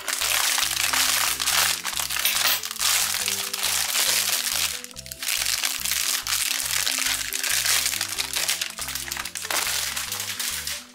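Thin plastic packaging bag crinkling loudly as it is handled and opened, pausing briefly about five seconds in. Background music with a low bass line runs underneath.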